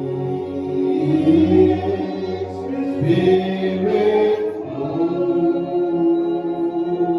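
Worship singing in a gospel church service: voices singing a slow worship song in long held notes over musical accompaniment.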